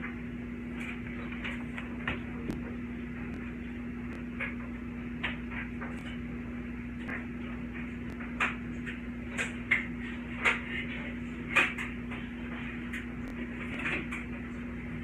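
Scattered knocks and clicks of cupboards and utensils being handled while someone looks for a mixing spoon, with several louder knocks in the second half, over a steady low hum.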